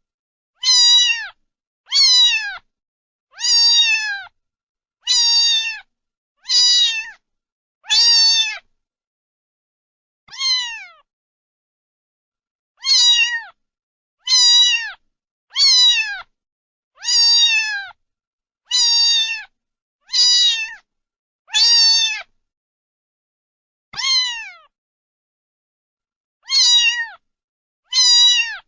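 A cat meowing over and over: about seventeen short meows, each falling in pitch, roughly one every second and a half, with a few longer pauses and silence between them.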